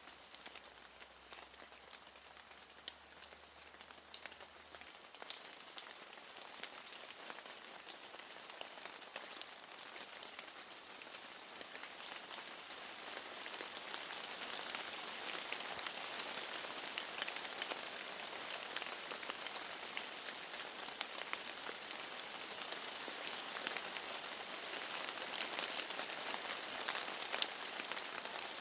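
Steady rain falling against a window, with many single drops ticking through the hiss. It swells louder about halfway through.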